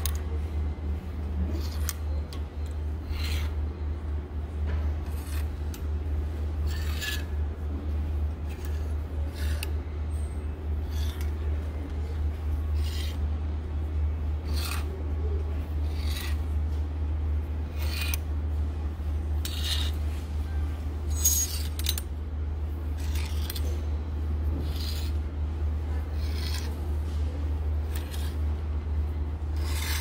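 Clothes hangers on a shop clothing rack being slid along the rail one after another, each push giving a short scrape or click, with the shirts' fabric rubbing together. A steady low hum runs underneath.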